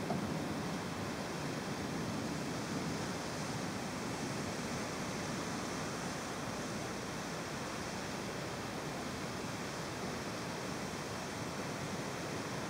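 Steady, even rushing noise of a thunderstorm: heavy rain and wind.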